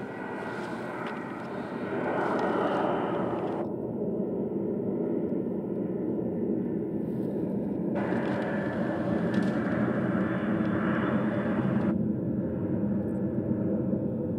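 Boeing 747's four jet engines at takeoff power as it climbs away: a loud, steady rumble that swells about two seconds in and then holds.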